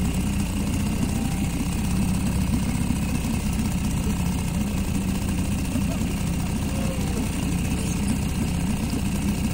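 A small sailing yacht's engine running steadily under way, a constant low rumble with a fast pulse. The boat is motoring because the wind has died.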